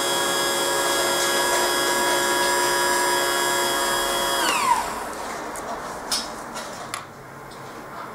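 Car windscreen wiper motor running with a steady whine, then switched off about four and a half seconds in, its pitch falling quickly as it spins down. A few short clicks and knocks follow.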